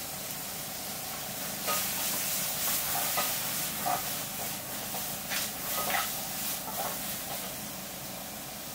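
Food sizzling as it fries, with a run of sharp crackles, scrapes and clinks between about two and seven seconds in.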